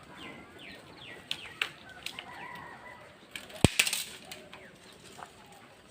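Small birds chirping with short quick calls, and a sharp knock about two-thirds of the way through that is the loudest sound.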